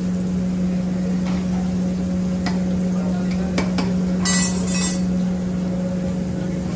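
Large metal spoon stirring a stainless steel pot of stew, with a few sharp clinks of metal on the pot between about two and a half and four seconds in and a brief rattling clatter just after, over a steady low hum.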